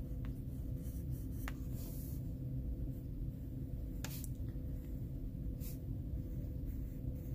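Dark umber coloured pencil scratching faintly on a colouring-book page as it shades, with a few light ticks, over a steady low hum.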